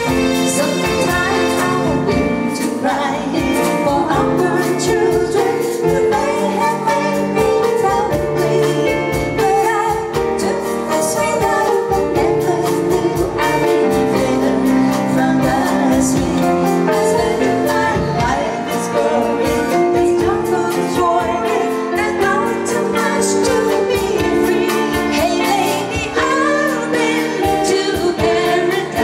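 A live band playing a song with a woman singing: the vocal melody sits over a drum kit, hand percussion and keyboard, with a steady beat.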